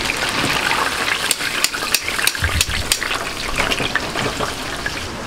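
Battered food frying in a deep fryer full of hot oil, a steady sizzle, with a run of sharp metal clicks from tongs and a wire mesh strainer knocking together between about one and three seconds in.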